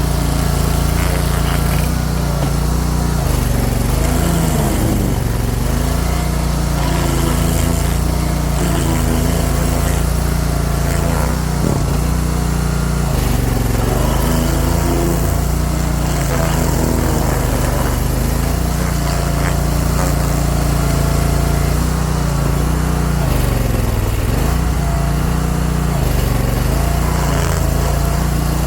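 Stump grinder's small gasoline engine running at high speed, its pitch dipping briefly and recovering several times as the cutting wheel loads up on the stump.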